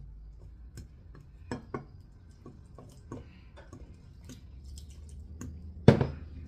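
Utensil clinking and knocking against a mixing bowl as cake batter is stirred by hand: irregular light clicks, two louder knocks about a second and a half in, and one loud knock near the end.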